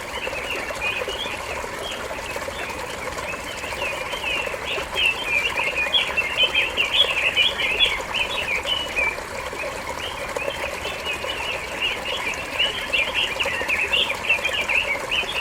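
Many small wild birds chirping at once in a dense, continuous chorus of short high chirps, busiest around the middle and again near the end.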